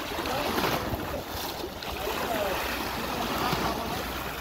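Small sea waves washing and splashing against rocks, with wind rumbling on the microphone.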